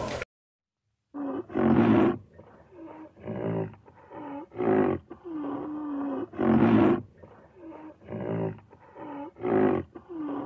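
A greater one-horned rhinoceros calling over and over: a series of short pitched calls, roughly one a second, some louder and some softer.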